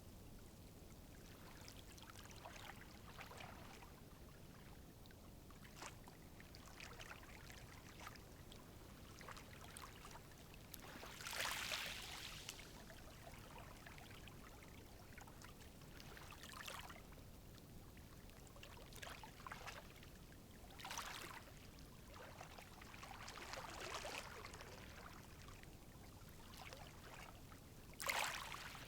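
Calm sea waves washing in gently, quiet and soft, with a small wave breaking every few seconds; the strongest swells come about eleven seconds in and just before the end.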